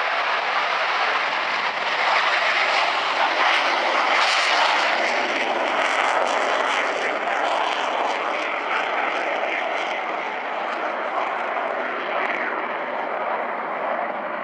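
Military jet engines running at high power: a loud, steady jet roar that swells a couple of seconds in and eases off somewhat in the last few seconds.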